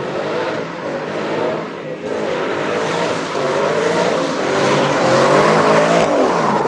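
A car engine revving hard under acceleration, its pitch rising and falling and the sound getting louder as a car speeds past close by near the end.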